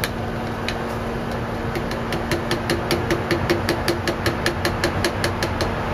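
Quick light taps on a metal Plasti Dip can, about five a second, starting about two seconds in, as the last of the dip is worked out of the upended can into a glass jar. A steady mechanical hum runs underneath.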